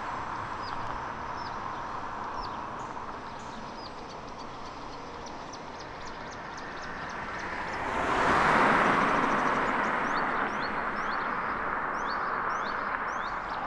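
Steady traffic rumble with birds chirping in short, falling calls. About eight seconds in a road vehicle passes close by, swelling to the loudest point and fading away over the next few seconds.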